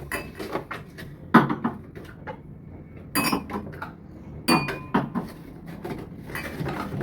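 New wine glasses clinking and knocking as they are handled and set down: several sharp clinks, some ringing briefly, the loudest about a second and a half in.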